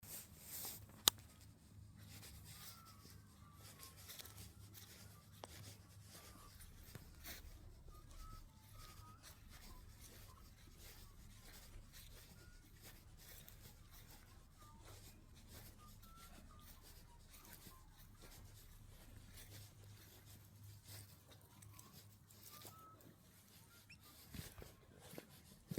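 Near silence: a faint low hum with one sharp click about a second in and a few faint, short high chirps scattered throughout.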